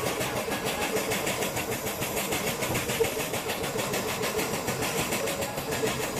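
Jeweller's torch flame hissing steadily with a fast, even pulsing as it heats a silver ring band for soldering.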